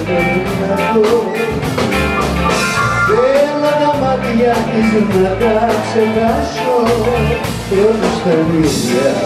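Live band playing folk rock: a man singing over guitar and drum kit.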